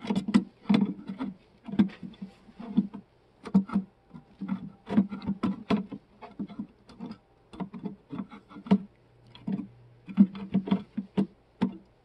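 Irregular run of hard plastic clicks and knocks as a projector lens is worked and twisted against the posts of a Saab 9-3 headlight housing, trying to seat it.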